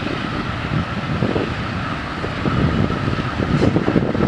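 Wind buffeting the microphone in uneven low gusts, over the faint steady running of a distant diesel locomotive approaching with an empty freight train.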